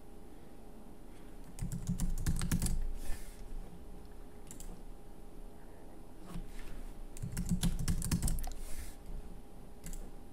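Computer keyboard typing in two quick runs of keystrokes, each lasting a second or two, with a few single clicks between and after them. A password is being typed and then typed again to confirm it.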